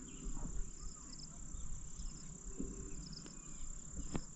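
Insects trilling outdoors, a steady high-pitched drone with faint repeated chirps, over a low rumble; a sharp click sounds about four seconds in.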